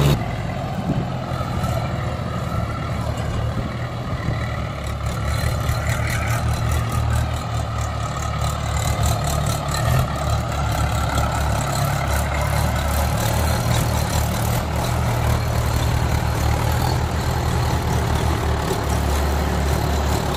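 Diesel engines of two Mahindra tractors running steadily under load as one tows the other, a Mahindra 575 DI hitched to a loaded trolley, by chain through mud.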